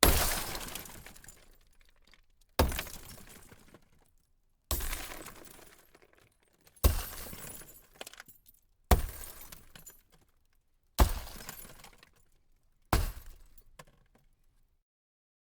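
Glass shattering seven times, about two seconds apart. Each break is a sharp crash whose tail fades away over a second or two.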